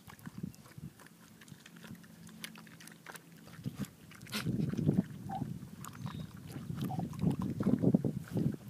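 Pig eating from a half watermelon: wet chomping and smacking, faint and scattered at first, then louder and quicker from about four seconds in.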